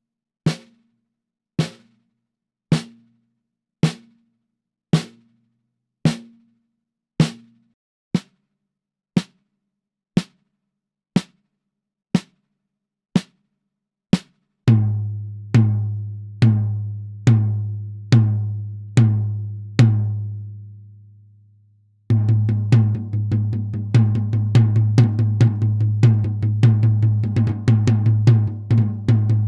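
A snare drum struck in single strokes about a second apart, each with a short ring. About 15 seconds in it changes to slower strokes on a tom with a long, low ring, then from about 22 seconds a fast roll of rapid strokes.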